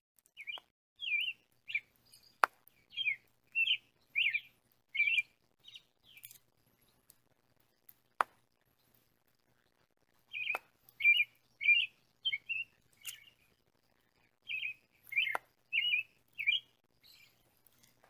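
A small songbird chirping in three runs of quick, short chirps, a few a second, with pauses between the runs. A few sharp clicks fall in among them.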